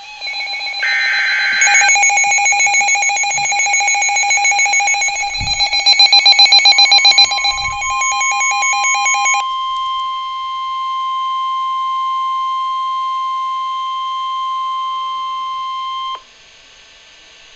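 Weather radio alert: an electronic alarm beeping in fast pulses, several tones sounding at once. Partway through, the steady 1050 Hz NOAA Weather Radio warning tone comes in, holds on alone after the beeping stops, and cuts off suddenly about sixteen seconds in.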